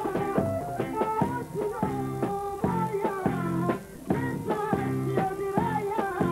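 A boy singing a folk (narodna) song into a microphone over an instrumental backing with a steady beat.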